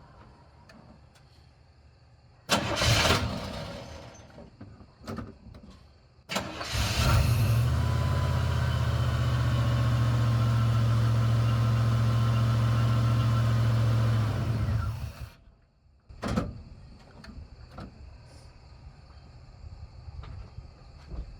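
1990 Chevy C1500 pickup's engine is cranked and starts about six seconds in, then runs steadily for about eight seconds before cutting out suddenly. The stall comes as the truck is put in gear, the fault it has: the engine dies in gear. A short burst of noise comes a few seconds before the start, and a few small knocks follow the stall.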